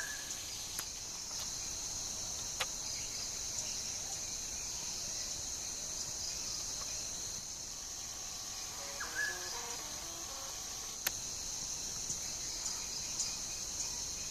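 Steady high-pitched chorus of insects trilling. Twice a bird gives a short call of stepping, falling notes, at the very start and about nine seconds in. A few sharp clicks are heard here and there.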